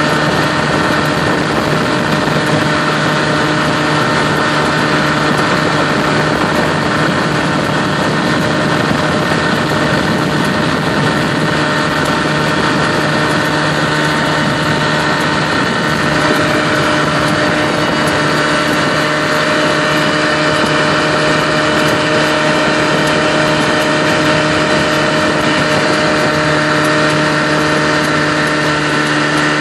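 1964 Mercury 110 two-stroke outboard motor running steadily at a constant throttle, pushing the boat along under way.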